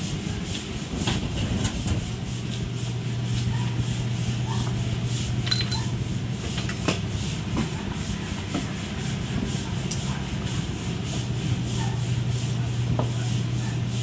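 Steady low hum with a rushing hiss over it, and scattered light clicks and clinks of food and metal utensils being handled.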